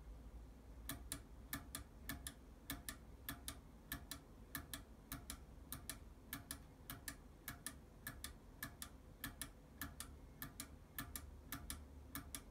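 Front-panel push button of a homebrew 6802 computer pressed over and over to single-step the CPU through the interpreter one instruction at a time. Each press and release gives a close pair of sharp clicks, a little under two pairs a second, starting about a second in.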